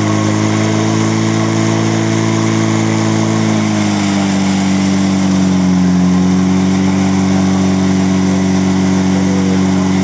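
A portable fire pump's engine running hard at steady high revs while it pumps water out to the two nozzle jets. Its pitch drops slightly about four seconds in and then holds steady.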